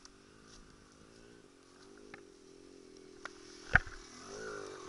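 Dirt bike engine idling unevenly in the background, with one sharp knock about three and a half seconds in as the fallen bike is handled; near the end the engine note swells and bends.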